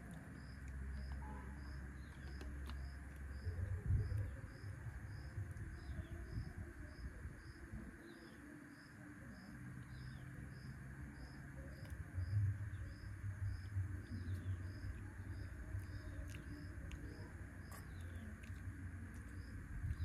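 An insect chirping in a steady, even rhythm, about two short chirps a second, with a few faint bird calls. Beneath it runs a low rumble that swells about four seconds in and again about twelve seconds in.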